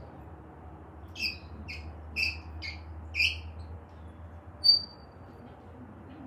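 African grey parrot calling: five short calls in quick succession from about a second in, then a single short, high whistle, the loudest sound, a second and a half later.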